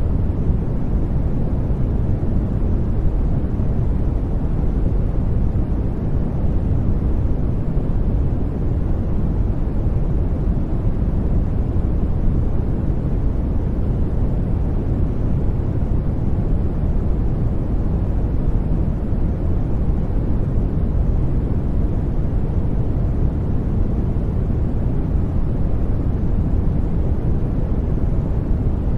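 Steady sleep noise track (soft "white noise"), an even hiss weighted toward the low end so it sounds deep and muffled, unchanging throughout.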